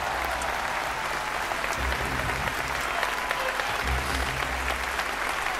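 Audience applauding steadily, many hands clapping, with background music and a low bass pulse about every two seconds underneath.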